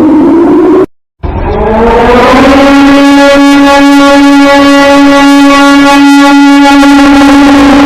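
Civil-defence air-raid siren: a falling wail cuts off about a second in, and after a brief gap another siren winds up, rising steeply in pitch before holding a loud, steady tone rich in overtones.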